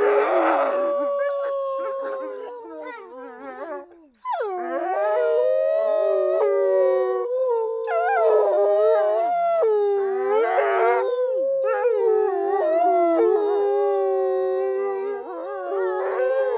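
Dog howling in long drawn-out howls, several pitches overlapping at once, with a short break about four seconds in before the howling starts up again.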